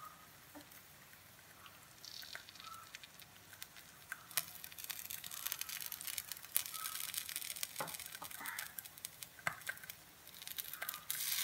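Batter sizzling and crackling in a hot frying pan as more is ladled over a folded pathiri. The sizzle grows louder about four seconds in and again near the end.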